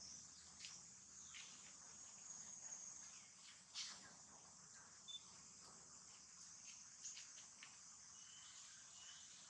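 Near silence with a faint, steady, high-pitched insect chorus of crickets, broken by a few soft clicks.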